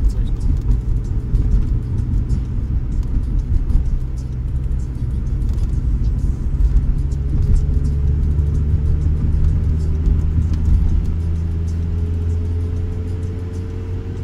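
Volvo V40 driving on the road, heard inside the cabin: a steady low engine and road rumble, the engine note rising slowly in the second half as the car gathers speed.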